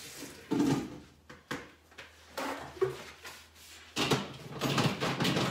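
Kitchen handling noises: a few separate knocks and clunks, then denser clattering and rustling from about four seconds in.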